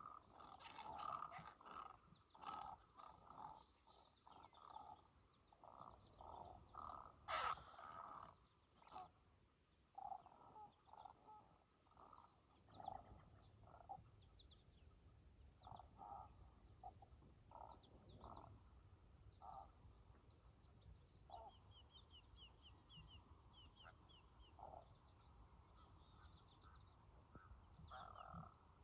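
Short, low croaking calls from great egrets and great blue herons squabbling in a flock, coming in bouts that are loudest and most frequent in the first half. A steady high-pitched insect drone runs underneath.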